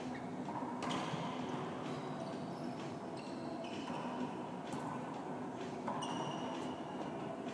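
Racquetball rally: several sharp cracks of the rubber ball off racquets and court walls, about a second in and again around five and six seconds, with short high squeaks of sneakers on the hardwood floor between them.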